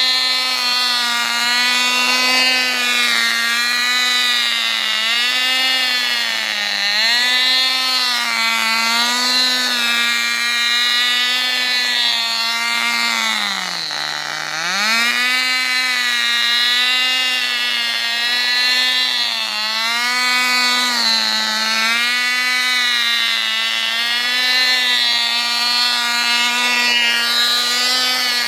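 Tiny two-stroke glow engine of an old Cox model car running at high revs with a high-pitched buzz, its pitch wavering slightly as the car drives. About halfway through the revs sag sharply and then pick up again.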